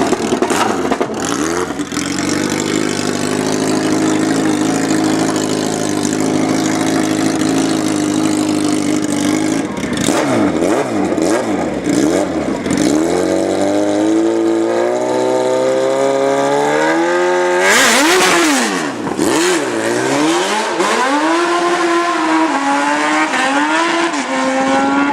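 Drag car engine held at a steady rev for several seconds, then accelerating hard with the pitch climbing. About two-thirds through comes a brief rush of noise and the revs swing sharply up and down as the tires break loose, then climb again.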